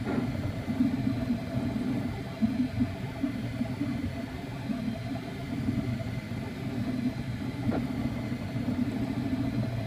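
FDM 3D printer at work: its stepper motors whirring in short, uneven spurts as the print head moves, over a steady thin whine.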